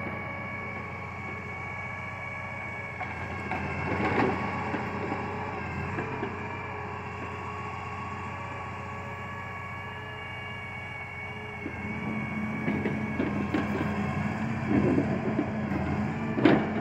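Logging truck's log loader working: a diesel engine running steadily with a steady whine from the hydraulics, a single knock about four seconds in. About two-thirds of the way through, the engine picks up and the sound gets louder and busier as the loader works.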